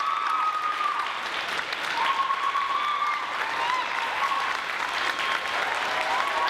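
Audience applauding and cheering, with several long, high whoops held about a second each.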